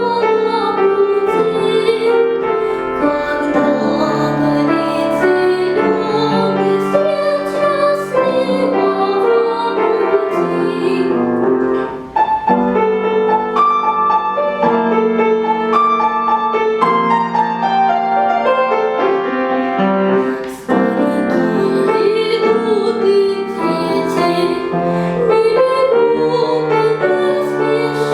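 A young girl singing a children's song in classical (academic) vocal style, with vibrato, accompanied by piano.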